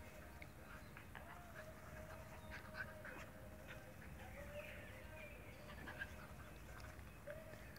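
Two puppies at play, a Sheltie and a Bolonka: faint whining and small squeaky growling noises, with scattered light scuffles.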